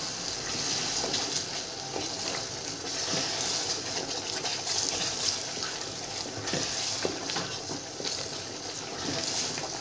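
Tomato paste and chopped peppers frying in oil in a stainless steel pot, a steady sizzle, while a wooden spoon stirs the sauce with occasional light scrapes and knocks against the pot.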